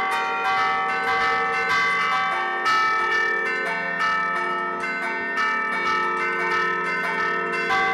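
Church bells played by hand from a tower bell keyboard (tastiera) in the Bergamasque style: the levers pull the clappers against the hanging bells, ringing a quick tune of overlapping strikes, several a second, over the long ring of the bells.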